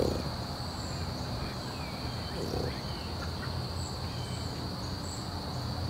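Insects buzzing steadily at a high pitch over a low outdoor rumble, with one short low sound about two and a half seconds in.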